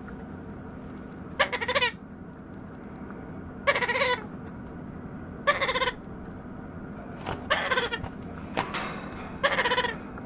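Baby white-capped pionus parrot making hunger begging calls: about six short, stuttering, bleat-like cries, one every second or two, over a faint steady hum.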